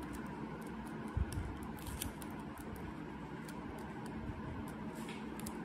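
Faint crinkling and small clicks of clear adhesive tape and paper being folded and pressed by fingers, over a steady hiss, with a soft thump about a second in.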